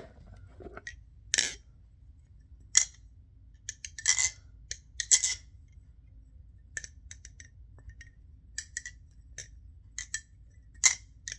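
Nabalis Impulse balisong (butterfly knife) being flipped: irregular sharp metallic clicks and clacks as its washer-pivoted handles swing around the blade and slap together, several loud ones with a short ringing tone.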